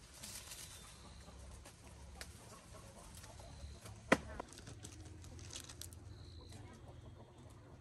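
Scattered light taps and clicks, with one sharp, loud knock about four seconds in.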